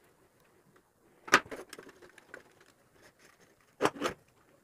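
Handling clatter while wiring a switchboard: a few short, light knocks as the plastic socket panel is shifted against its wooden box and the phase wire is fitted to the MCB with a screwdriver. The loudest knock comes about a second in, with another pair near the end.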